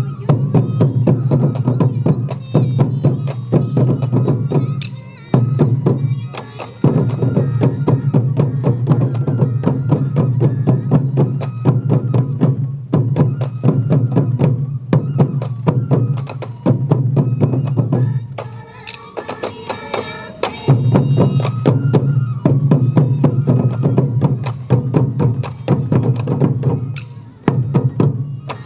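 Sansa odori festival music: taiko drums beaten in a fast, steady rhythm, with sharp stick strikes. The drumming breaks off briefly twice, about five and nineteen seconds in.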